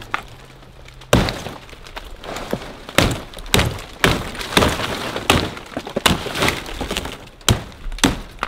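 A blade chopping into the crown of a cọ fan palm to cut out the edible palm heart. About ten sharp, cracking strokes start about a second in and come roughly every half second to a second, unevenly spaced.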